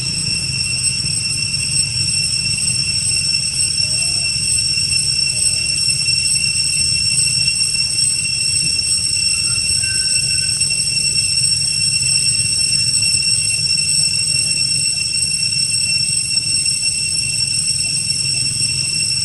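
Steady, high-pitched drone of an insect chorus, unbroken throughout, over a low rumble.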